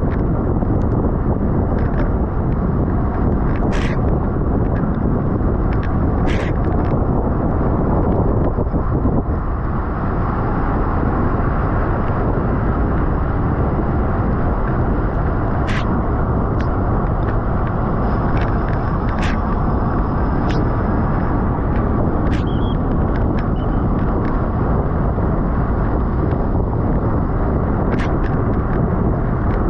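Wind buffeting the microphone of a bicycle-mounted camera at race speed, a loud steady rush strongest in the low range, with scattered sharp clicks.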